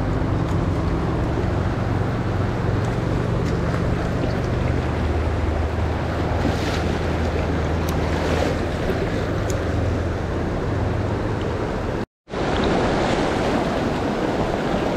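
Steady rush of river water flowing past, cutting out for an instant about twelve seconds in.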